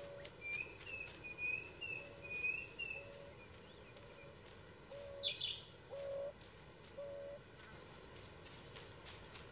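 African wild dogs giving hoo contact calls, short hoots about one a second, as the pack answers a lost member so they can find each other. Small birds twitter over the first three seconds, and a sharp high call comes about five seconds in.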